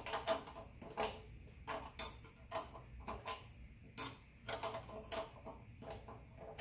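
Metal hand tool clicking and clinking against the reversing solenoid's terminal nuts and bolts while cables are fastened. The sharp clicks come irregularly, about one or two clusters a second.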